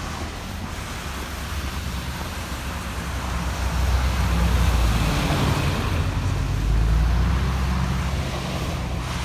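Low, steady rumble of a vehicle in motion, mixed with a rushing noise, swelling twice, a few seconds in and again near the end.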